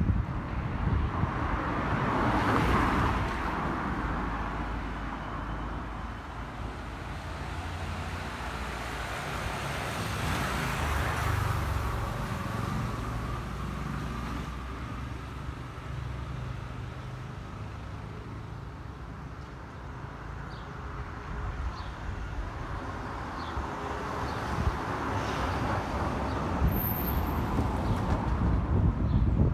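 Road traffic: cars passing on the street, with swells of tyre and engine noise about two seconds in and again around ten seconds in, over a steady low rumble.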